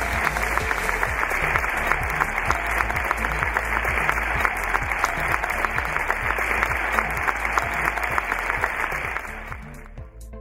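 Large theatre audience applauding, with background music and a steady low beat underneath; the applause fades out near the end.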